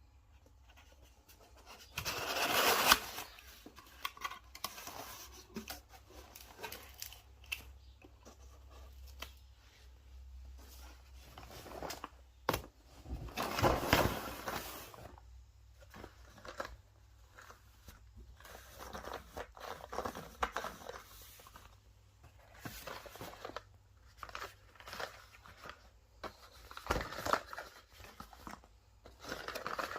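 Cardboard and paper packaging of Nespresso capsules being torn open and handled: irregular tearing, crinkling and scraping, with two louder bursts of tearing and a sharp click between them.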